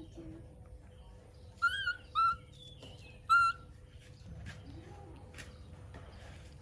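Baby monkey giving three short, high-pitched squeaking calls: two in quick succession, then a third about a second later.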